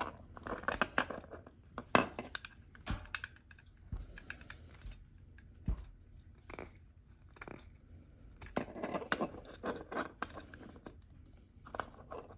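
Hands twisting two thin LED lead wires together, making faint scratchy rustling with scattered small clicks and taps.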